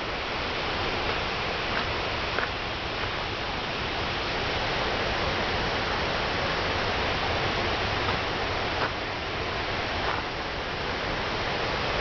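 Rushing water of river rapids: a steady, even wash of water noise, with a few faint clicks now and then.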